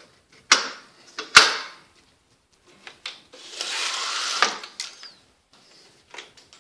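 A window being worked in its frame. Two sharp knocks come in the first second and a half, then a sliding rasp of about a second just past the middle ends in a clack, with a few lighter clicks near the end.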